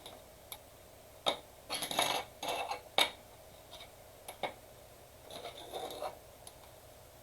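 Trading cards being handled on a tabletop: several sharp clicks and taps with short scraping slides in between.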